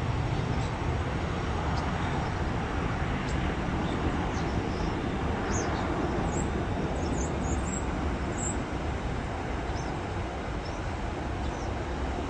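Jet engines of a departing Airbus A320-family airliner in its take-off climb: a steady, deep roar that slowly fades as the aircraft moves away.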